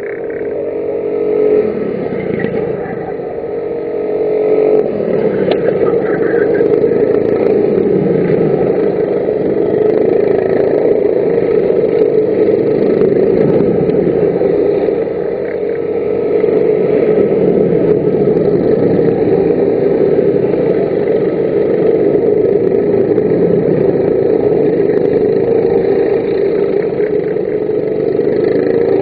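Engines of several F-400 racing karts running at race pace around the circuit. Their pitch rises and falls as they brake, accelerate and pass, and the mix of engines is heard throughout.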